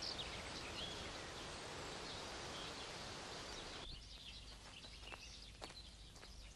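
Faint outdoor ambience of small birds chirping over a steady hiss. The hiss cuts off abruptly about four seconds in, leaving birdsong with a few light clicks.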